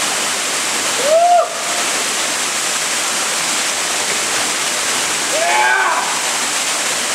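Waterfall pouring steadily onto rock, a constant rushing hiss. A person's voice calls out briefly about a second in and again shortly before the end.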